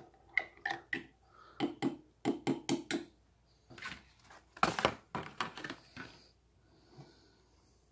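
Metal spoon clinking against a ceramic mug while stirring coffee: a quick series of taps over the first three seconds. A few louder knocks and clatter follow around five seconds as the spoon and tableware are set down.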